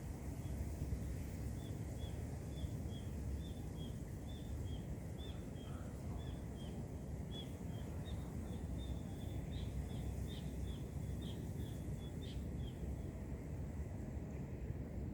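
A bird calling a long series of short, high chirps, about two a second, that stops near the end, over a steady low rumble.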